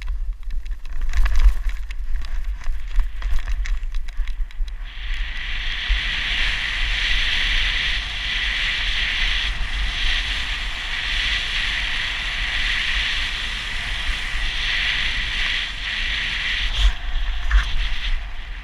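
Wind buffeting the microphone of a helmet-mounted camera during a snowboard descent, with a constant low rumble. Scattered knocks and crackle over the first few seconds give way, about five seconds in, to a steady hiss of the snowboard sliding over snow.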